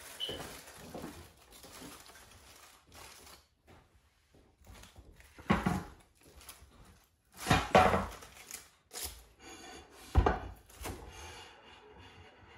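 Aluminium foil rustling and crinkling as it is pulled back from a roasted lamb shoulder, with knocks of the roasting tray, rack and plate as the joint is lifted onto a serving plate. Three louder knocks come in the second half.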